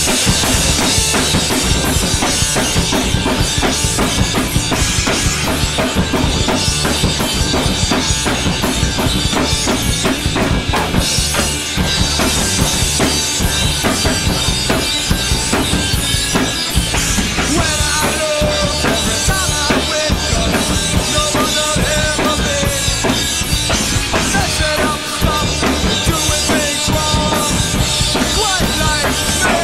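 Acoustic drum kit played in a fast, driving punk rock beat: bass drum, snare and crashing cymbals, played along to a recorded punk song whose guitars and singing are audible underneath.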